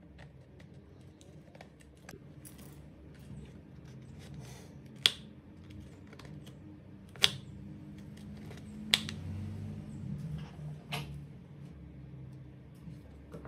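Sharp plastic clicks and small taps from the mode change knob on the gear housing of a Makita DHR243 cordless rotary hammer as it is fitted and turned by hand: four loud clicks roughly two seconds apart, with fainter ticks between, over a faint low hum.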